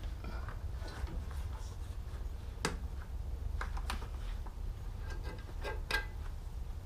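Handling noise from stretching a urethane tire onto a bandsaw wheel with a tire tool: scattered clicks, light knocks and rubbing. A low steady hum runs underneath.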